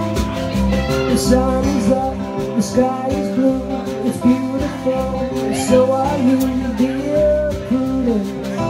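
Live acoustic guitar strummed with a drum kit and cymbals keeping time, and a man singing over them.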